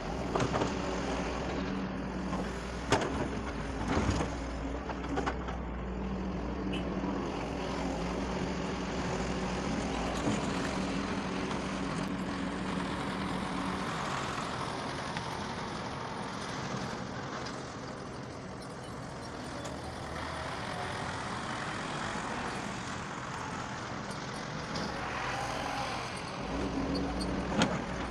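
Doosan DX140 excavator working as it digs and loads soil, its diesel engine running steadily, with a few sharp knocks in the first five seconds.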